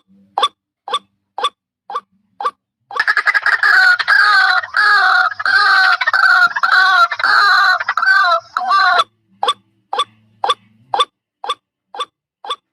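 White-breasted waterhen calls from a lure recording: short single notes repeated about twice a second, broken for about six seconds in the middle by a loud, dense run of harsh, rhythmic 'ruak-ruak' calls, then the single notes resume.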